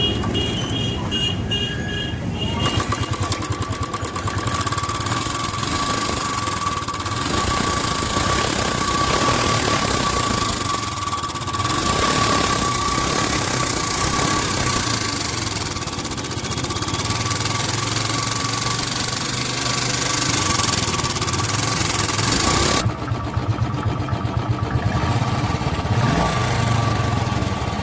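Royal Enfield Bullet Electra 350 single-cylinder engine running, with hydraulic tappet noise from its valve train: oil starvation from a clogged oil filter, which a freshly fitted filter is curing. About 23 seconds in the sound changes, the hiss dropping away and separate beats standing out.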